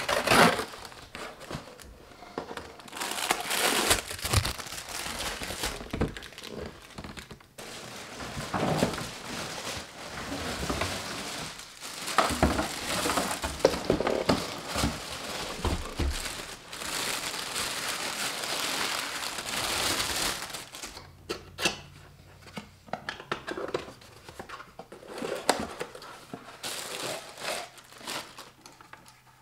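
Plastic wrapping and cardboard packaging crinkling and rustling as appliances are unboxed and handled, with scattered knocks and taps. The rustling thins out about two-thirds of the way in, leaving lighter clicks and taps.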